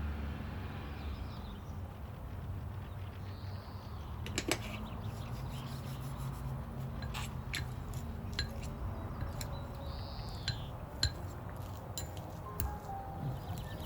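Scattered light clinks and taps, like dishes or utensils being handled, over a low steady hum.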